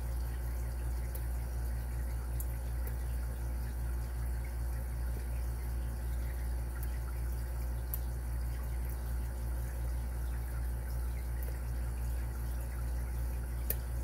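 A steady low hum, with a handful of faint, sharp metallic ticks as a lock pick works the pins of a Carbine padlock held under tension.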